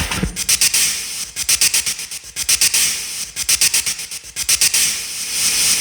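Steam hissing out of a New York street vent from the underground, in about three long swells with a fast, even flutter through each.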